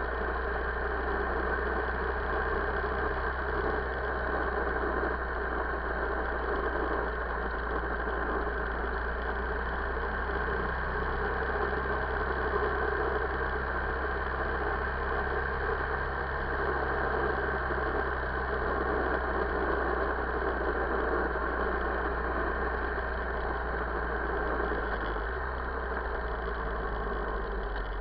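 2008 Buell XB9SX's air-cooled V-twin engine running steadily while the motorcycle cruises at about 4,000 rpm, with wind rush; the engine note eases off slightly near the end as the revs drop.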